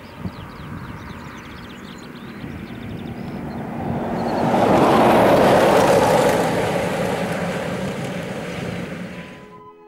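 A vehicle passing by outdoors, its broad noise swelling to a peak about halfway through and slowly fading away over several seconds, with faint high chirps during the first few seconds.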